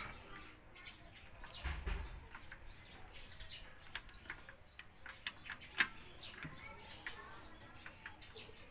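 Birds chirping in the background, with scattered light metallic clicks and taps as parts are handled and fitted on an engine cylinder head.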